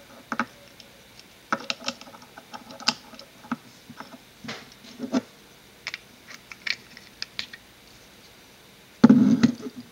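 Small clicks and taps of metal and plastic parts of a MAS-G airsoft grenade being handled as a primer is loaded into the insert on its base, with a louder knock and rattle about nine seconds in as the base and grenade body are handled together.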